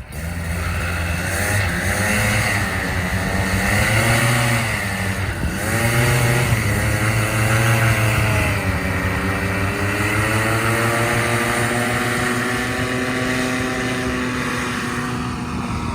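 Polini Thor single-cylinder two-stroke paramotor engine running with its propeller. The throttle is opened and eased a few times in the first six seconds, then the engine holds a steady speed.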